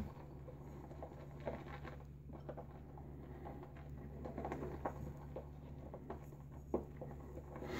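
Faint, soft wet swishing and patting of a boar-bristle shaving brush whipping thick Williams mug soap lather in a bowl, with one sharper tap about seven seconds in.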